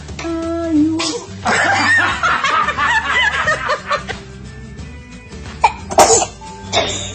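Three quick, sharp sneezes near the end, the second the loudest, over background music.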